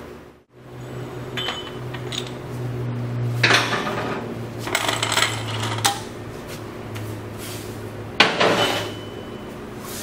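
Metal clanks and rattles of steel tool parts being handled as the valve seat puller is taken apart, with the hydraulic jack lifted off the puller shaft. There are several clatters, the loudest about eight seconds in, over a steady low hum.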